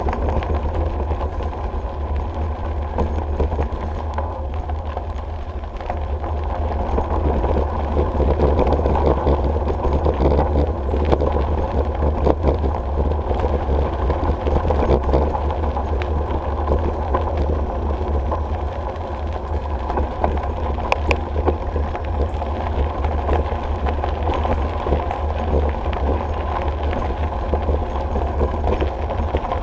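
Bicycle rolling steadily along a gravel trail: a continuous tyre-on-gravel rumble with scattered small clicks, under a heavy low wind rumble on the camera's microphone.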